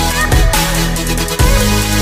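Electronic dance music with heavy bass and a steady beat.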